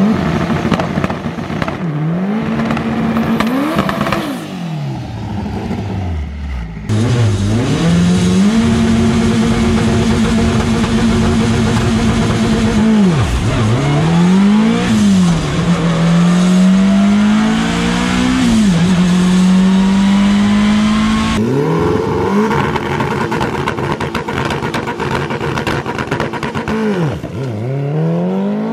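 Twin-turbo Toyota MR2 drag car's engine revving hard again and again. It is held at a steady high pitch for a few seconds at a time, then drops away and climbs back up. The sound changes abruptly about seven seconds in and again about twenty-one seconds in.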